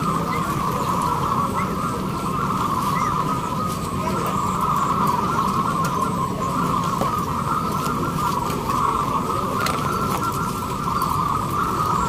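Many zebra doves (perkutut) cooing at once in a dense, unbroken chorus over a low background rumble.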